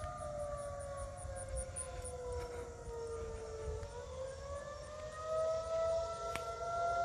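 Federal Signal 2001-130 outdoor tornado warning siren sounding in its monthly test. Its wail slides down in pitch for the first few seconds, then climbs back up about halfway through and holds steady.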